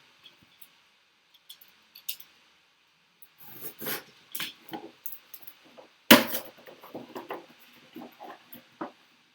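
Hands opening a trading-card box: scattered rustling of card packaging and small clicks, with one sharp, loud clack about six seconds in.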